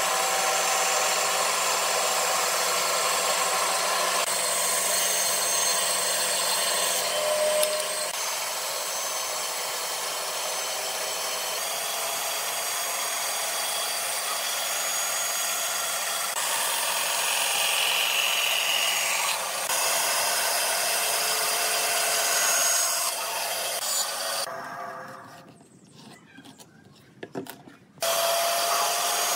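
Band saw running, its blade cutting a curved line through a wooden board with a steady hiss. About three-quarters of the way through, the sound falls away for a few seconds, then comes back suddenly near the end.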